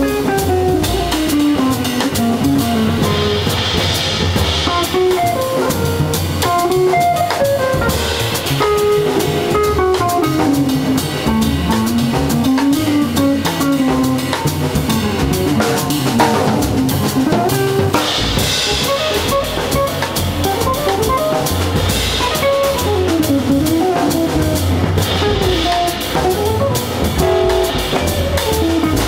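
Live small-group jazz: a hollow-body electric guitar picks a winding single-note line over a drum kit keeping time on cymbals and drums.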